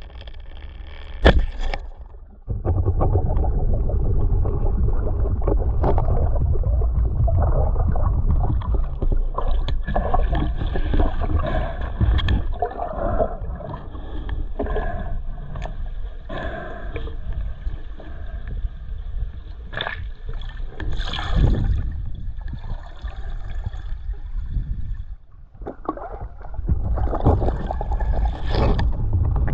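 Water noise on an underwater action camera: a loud, muffled low rumble of water moving over the housing, with scattered knocks and a sharp click about a second in. The rumble briefly drops away near the end, then returns.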